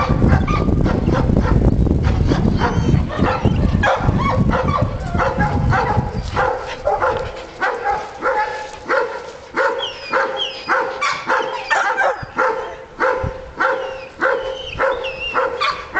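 Dogs whining and yipping close by, over a heavy rumble on the microphone for the first six seconds; after that, short sounds come a few times a second.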